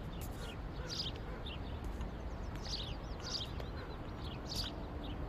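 Small birds chirping outdoors: short, falling chirps at irregular intervals over a steady low background rumble.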